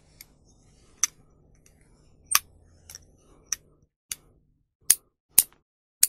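Nail clipper snapping shut again and again: a series of sharp, crisp clicks at uneven spacing, roughly one a second, some much fainter than others.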